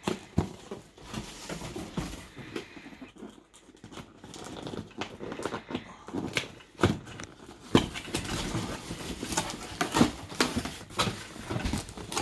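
Cardboard box and packaging being handled and opened: irregular scraping, rustling and knocks, busier and louder in the second half.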